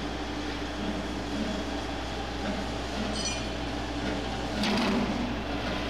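Charcoal briquette extruder running with the steady hum of its electric motor and gear drive. A metal scoop clinks once against a steel bowl about three seconds in, then knocks and scrapes in it more loudly near the end.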